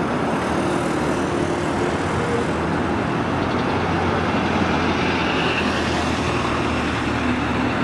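Volvo B5LH hybrid double-decker bus pulling past close by, its engine running with a low hum that grows from about three seconds in, over steady city street traffic.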